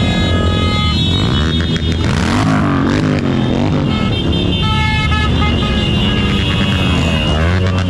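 A procession of motorcycles riding past one after another. Their engine pitch rises and falls as each one goes by, and there are a few brief horn toots about halfway through.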